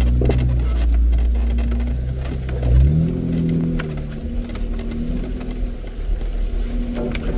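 Off-road vehicle engine running on a trail. A deep rumble drops away about three seconds in as the engine note rises, with scattered knocks and clicks.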